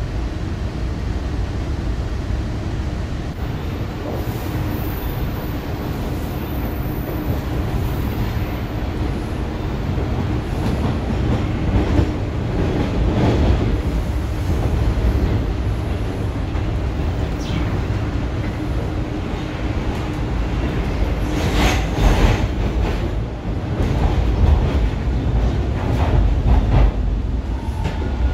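Interior of a Toronto subway T1 car in motion: a steady running rumble broken by groups of sharp wheel clicks over rail joints. Near the end a motor whine falls in pitch as the train slows into a station.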